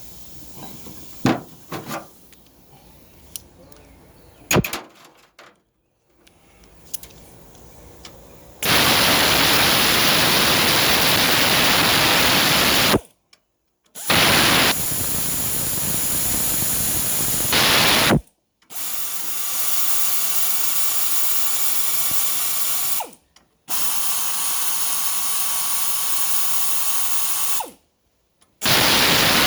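A power tool running in five long bursts of a few seconds each, every one cutting off suddenly, during a Turbo 400 transmission teardown. Before it, a few sharp clicks and knocks of metal parts being handled.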